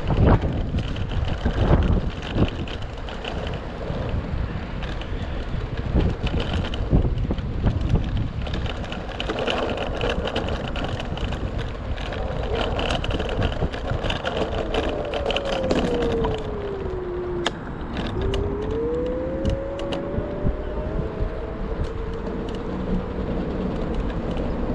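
Ride noise from a three-wheeled Yimi S600 electric scooter: steady road and wind rumble with frequent short rattling knocks. About two-thirds of the way through, a whine falls in pitch and then rises again.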